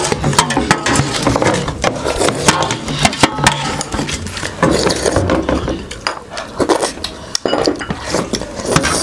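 Plates clinking and scraping while people eat by hand: many small, quick knocks and clicks.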